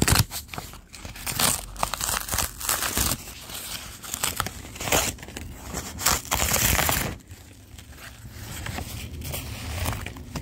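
Corrugated cardboard being cut and torn open by hand: irregular scraping and tearing strokes, with a long loud tear about six seconds in, then only quieter rustling near the end.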